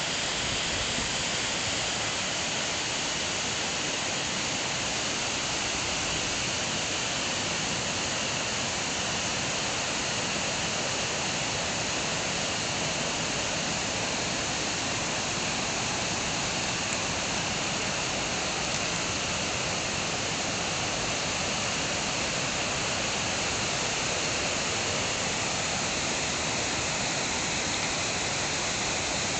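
Waterfall and its torrent: a steady, unbroken hiss of falling and rushing water, strongest in the upper range.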